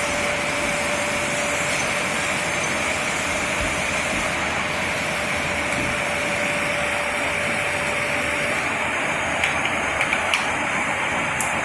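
Radio-controlled model vehicle running steadily, with a thin steady whine that stops about eight and a half seconds in, then a few sharp clicks near the end.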